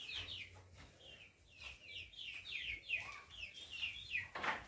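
Chicks in a poultry house peeping: many short, high calls, each falling in pitch, repeated one after another. A brief rustling noise cuts in near the end.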